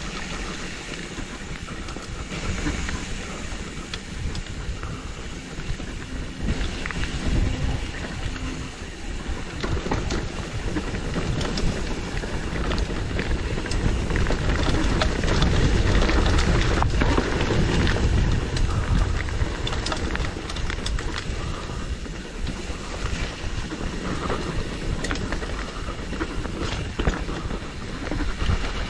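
Mountain bike riding down a rough dirt downhill trail: tyres on dirt with rattles and knocks from the bike over the bumps, under a heavy wind rumble on the camera's microphone.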